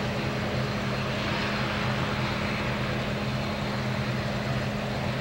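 Distant Boeing 737-800's CFM56-7B jet engines running steadily on the runway: an even rushing noise with a constant hum, not rising.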